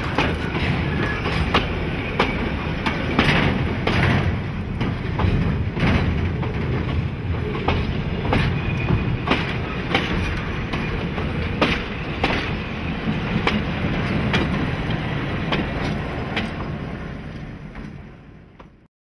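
Railway goods wagons rolling past at close range: a steady rumble with wheel clicks over the rail joints about once a second. The sound fades away near the end.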